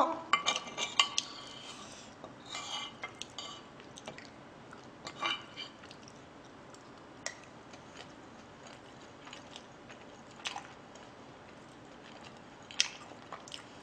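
Spoon scraping and clinking against a plate as fried rice is scooped up, with several quick scrapes in the first few seconds and then a few single clinks spaced apart.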